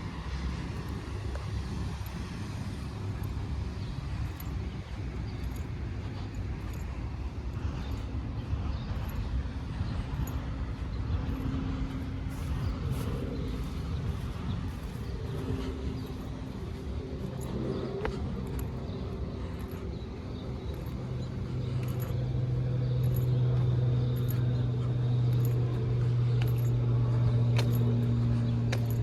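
Carrier 25VNA Infinity heat pump outdoor units running: a steady fan rush with a low inverter-compressor hum that grows stronger and louder a little past the middle.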